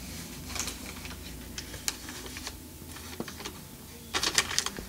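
Scattered light clicks and taps of a plastic fork working food in a foam takeout container, with a quick run of louder clicks near the end.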